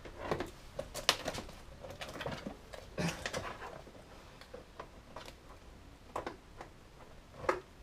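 Packaging tape being peeled off a plastic tool tray, with scattered crinkles and light taps of the packaging being handled.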